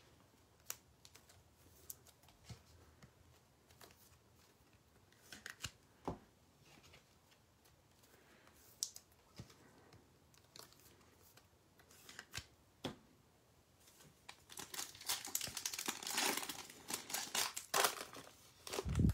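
Foil wrapper of a Prizm basketball retail card pack being torn open by hand: a run of crackling, crinkling rips in the last four or five seconds, after a stretch of only a few faint clicks.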